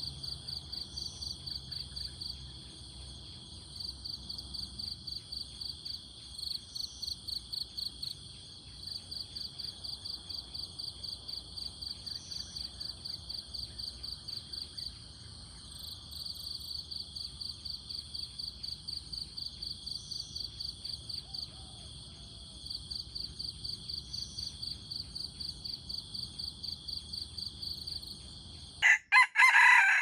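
Insects calling in a steady, high-pitched pulsing chorus, about three pulses a second, with short breaks every few seconds. Near the end a rooster crows loudly.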